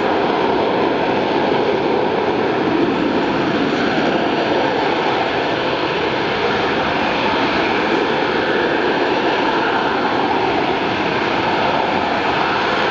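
Boeing AV-8B Harrier II+ hovering, its single Rolls-Royce Pegasus vectored-thrust turbofan holding the jet up on engine thrust alone. The jet noise is loud and steady, with a few faint steady whining tones in it.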